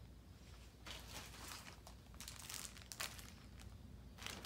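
Faint rustling and crinkling of a plastic bag as a hand rummages inside it, in a few short bursts about a second apart.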